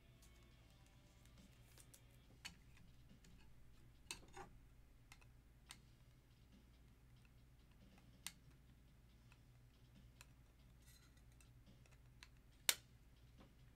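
Quiet room with a low hum and scattered small clicks and taps, with one sharper click near the end, from cards and small objects being handled on a desk.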